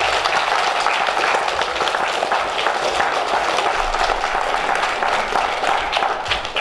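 A large audience of schoolchildren applauding, many hands clapping at once, tailing off near the end.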